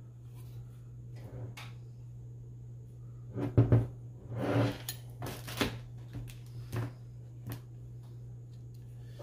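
Clunks and clicks of small hard parts and tools being handled on a workbench, a handful of them clustered in the middle, over a steady low hum.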